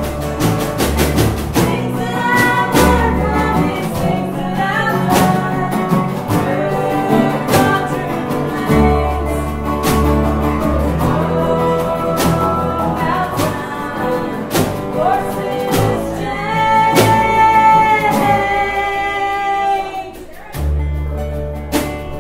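Acoustic string band playing, with banjo and upright double bass under a singing voice.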